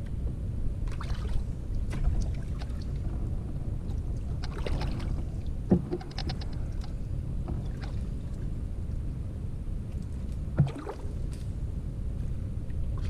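Canoe paddling: water swishing and dripping off the paddle every few seconds, with two sharp knocks of the paddle against the Old Town Camper canoe about five seconds apart, over a steady low wind rumble.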